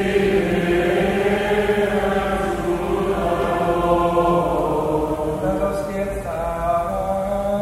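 Choir singing a sung part of the Eucharist liturgy, slow sustained chords of held notes.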